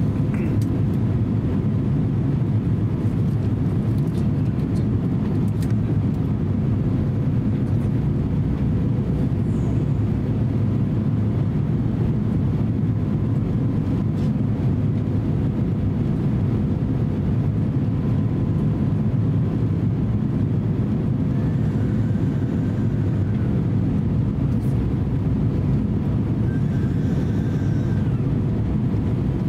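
Cabin noise inside an Airbus A350-900 on final approach: a steady low rumble of engines and airflow, with a faint steady hum above it.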